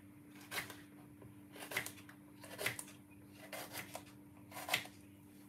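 Knife cutting through a bell pepper on a wooden chopping board: six short, crisp cuts, roughly one a second, with two close together near the middle. A faint steady hum sits underneath.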